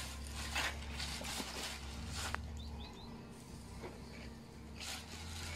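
Quiet outdoor ambience: faint bird chirps and a few soft rustles over a low steady hum that drops out about three seconds in, with one small click near the middle.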